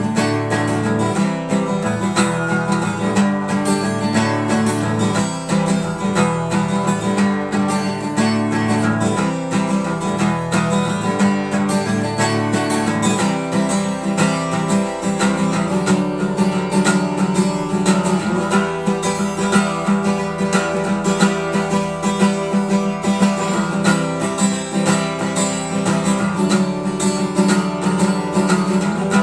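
Acoustic guitar strummed steadily through a run of chords, with a full, ringing sound that the player likens to a 12-string. About halfway through the chords shift and the lowest bass notes drop away.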